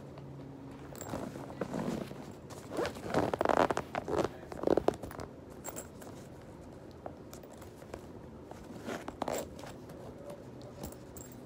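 Backpack zipper pulled along a pocket in a few rough strokes, the loudest about three to five seconds in, with handling noise of things being packed.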